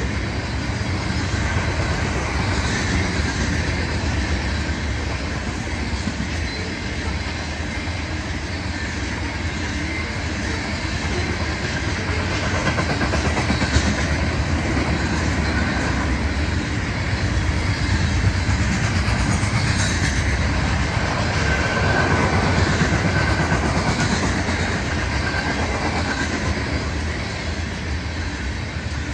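Freight cars rolling past, a steady rumble of wheels on the rails.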